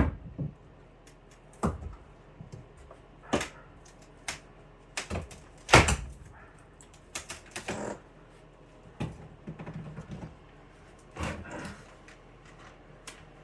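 Wooden framing boards being knocked and worked loose: a series of irregular sharp knocks and clatters, one or two seconds apart, the loudest about six seconds in.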